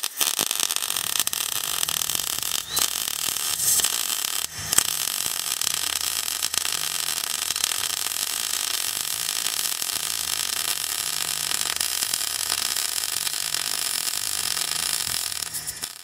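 Electric arc welding on steel, tacking a sleeve into a shipping container's corrugated wall: the steady crackling hiss of the arc, briefly interrupted twice in the first five seconds and cut off suddenly at the end.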